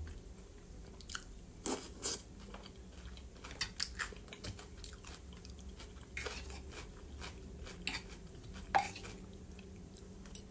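Close-miked chewing of a fresh vegetable salad in a creamy dressing: wet mouth smacks and crunches as short, irregular clicks, with a fork picking at the bowl.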